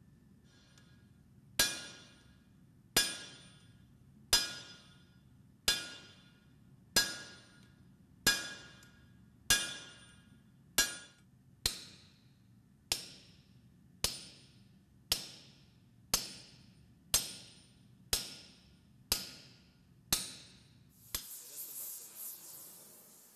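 Blacksmith's hand hammer striking on an anvil while forging: about seventeen evenly paced blows, roughly one a second and a little quicker toward the end, each with a short metallic ring. A short hiss near the end.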